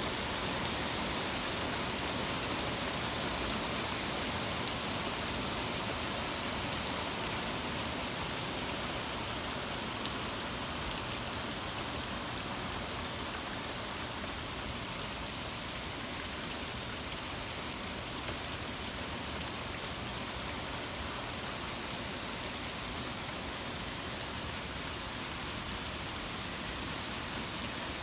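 Torrential rain pouring steadily, an even hiss of rain on surfaces.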